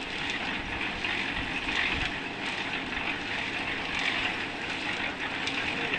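Construction machinery running steadily, with a few faint clicks and knocks.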